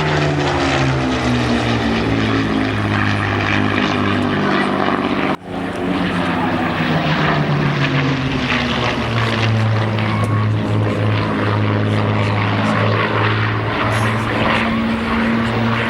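Propeller aircraft engine passing at an air display, its pitch falling as it goes by. About 5 seconds in the sound breaks off abruptly and resumes as a steady engine drone.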